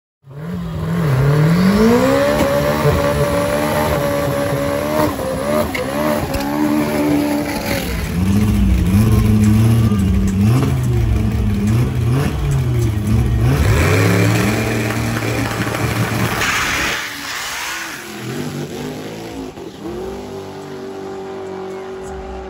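Turbocharged Nissan SR20 four-cylinder drag car and a rail dragster revved at the start line, the engine pitch climbing and falling again and again, then launched at full throttle; the sound drops away about two-thirds of the way in as the cars run off down the strip.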